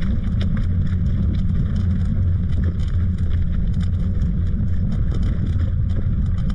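Steady low rumble of wind buffeting the microphone, with many light, irregular clicks and rattles over it.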